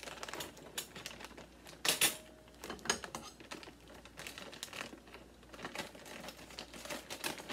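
Plastic bag of frozen corn crinkling as it is cut open with kitchen scissors: scattered small clicks, snips and rustles, the loudest about two seconds in.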